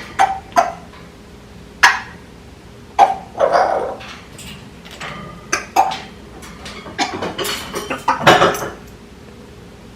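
Young African grey parrot at play: a string of sharp clicks and knocks, with longer, rougher calls about three and a half seconds in and again between seven and eight and a half seconds in.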